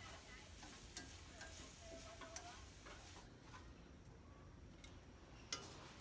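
Shrimp frying faintly in a wok, with light clicks of chopsticks and a spoon against the pan and plate. The frying hiss drops away about three seconds in, and one sharper click comes near the end.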